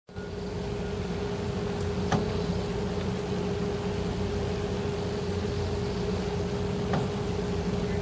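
Steady mechanical hum with a constant pitched drone, broken by two short clicks, one about two seconds in and one near the end.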